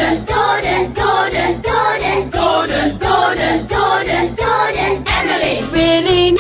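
Children's song sung by a choir over a backing track, chopped by an editing effect into short sung snippets that repeat about twice a second.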